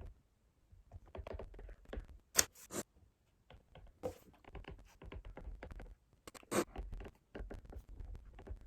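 Irregular scraping and clicking of things being handled, with two sharper clicks about two and a half and six and a half seconds in.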